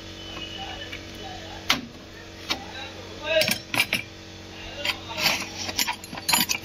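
Metal hand tools clinking and clanking against engine parts in irregular sharp strikes, over a steady low hum, during timing-belt work on a VW Polo 1.2 engine.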